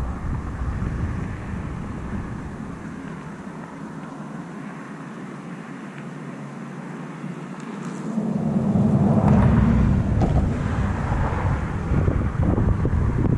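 Thunderstorm outdoors: low rumbling with wind buffeting the microphone. It eases off for a few seconds, then swells loudest about eight seconds in.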